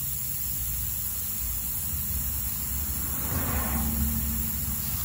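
Steady outdoor background noise: a low rumble with a constant high hiss, and a brief faint swell of noise about three to four seconds in.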